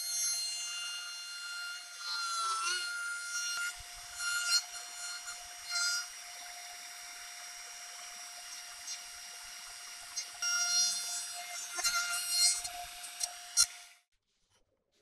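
Makita compact trim router running at speed with a straight bit, a steady high whine, cutting into the edge of an oak board. The cutting grows louder and rougher a few times as the bit bites deeper, and the router stops abruptly near the end.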